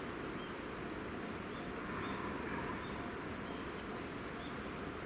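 Outdoor ambience: a steady low background rumble with small birds chirping faintly a few times.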